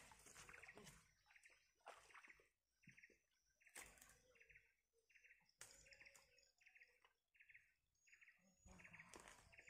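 Faint chirping: a short call repeated about twice a second, with a few soft knocks in between.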